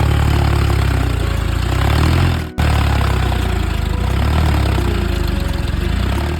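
A DIY mini tractor's small engine running steadily with a fast, even putter. It cuts out for an instant about two and a half seconds in, then carries on.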